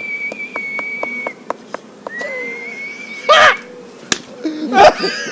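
A person whistling one long, steady, high note, with a few light taps during it. After a short break a second long note follows. Short loud vocal outbursts break in about three seconds in and again near the end.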